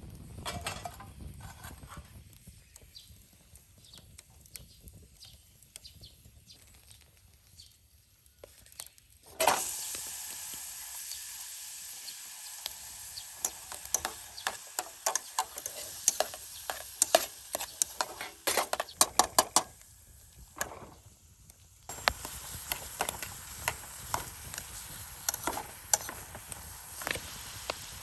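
Food sizzling and spitting in a hot pan. It starts suddenly about nine seconds in, after a quieter stretch of light clicks and handling, and runs as a steady hiss with many sharp pops, dropping away briefly about twenty seconds in before resuming.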